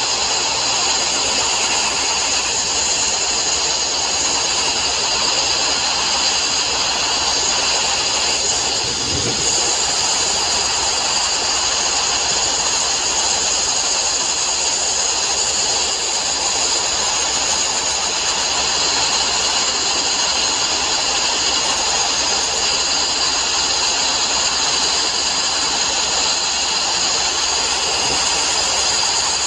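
Sandblasting nozzle blasting abrasive against steel plate, cleaning it for welding: a steady, loud hiss of air and grit that does not let up.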